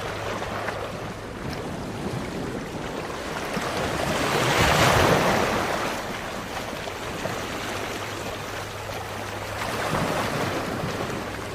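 Sea waves washing in, a rushing noise that swells to a peak about five seconds in and again near the end, over a steady low hum.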